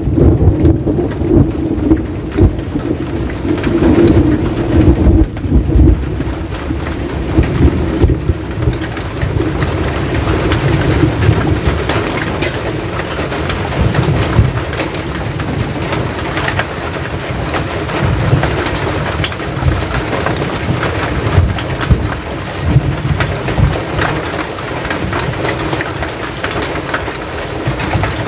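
Steady rain falling on a metal roof right overhead and on the wet ground, with a constant low rumble and many sharp drop impacts.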